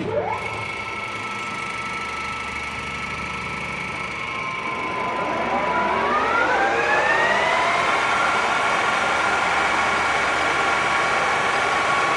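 Longem LG2080DS gear-head engine lathe starting: its 10 hp motor comes on suddenly with a quick rising whine. About five seconds in, the spindle and chuck spin up, and the gear whine climbs in pitch and grows louder for a few seconds before holding steady at a spindle speed of about 1250 RPM.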